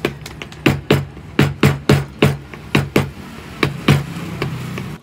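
A quick, fairly even series of sharp knocks, about three a second, over a steady low hum; it stops abruptly near the end.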